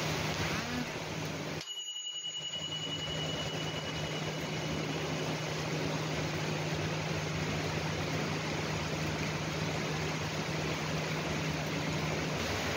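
Heavy rain pouring down in a steady, dense hiss, with a low steady hum beneath it. The sound briefly drops out a couple of seconds in, and a thin high tone then fades away over a few seconds.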